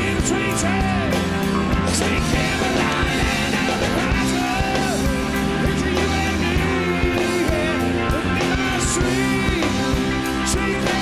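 Rock band playing a song: electric guitars, bass and drums, with a singer's voice over them.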